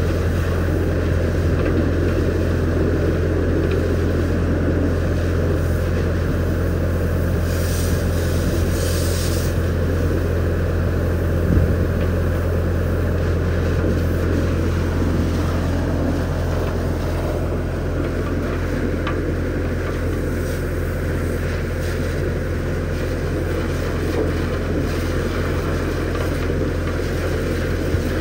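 High-pressure water jet from a pressure-washer lance spraying and splashing inside a vacuum truck's steel tank, over a steady low engine drone.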